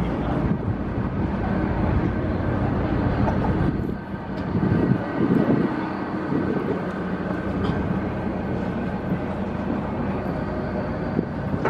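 Steady low machinery hum from the moored ferry, with wind buffeting the microphone; a louder rumble swells about five seconds in.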